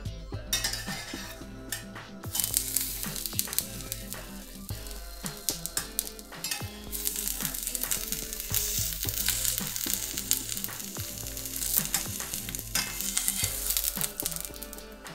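Egg-coated flat bread frying in oil in a pan, sizzling steadily and growing louder about two seconds in. A metal spatula clicks and scrapes against the pan as the bread is folded and turned.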